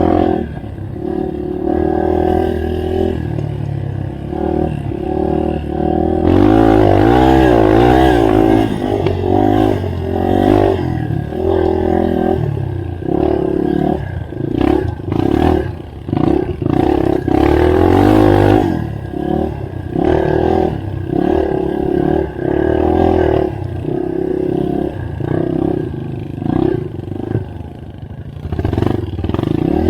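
Yamaha TT-R230 dirt bike's single-cylinder four-stroke engine running under a rider off-road, revving up and falling back again and again as the throttle is worked, with frequent short knocks and rattles.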